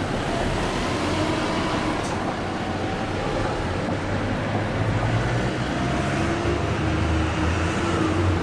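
Steady rumble of street traffic, with a vehicle engine's low hum growing louder in the second half.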